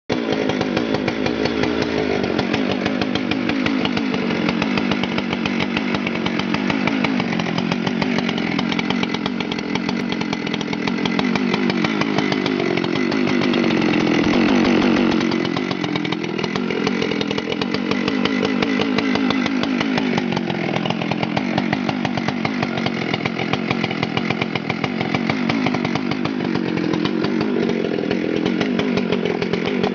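Husqvarna 394 XP two-stroke chainsaw engine running continuously, its engine speed drifting up and down and climbing to its loudest about halfway through.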